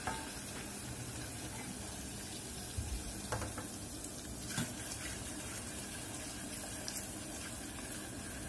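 Garlic sizzling gently in melted butter in a stainless steel saucepan, a steady soft hiss. A wooden spoon knocks lightly against the pan a few times.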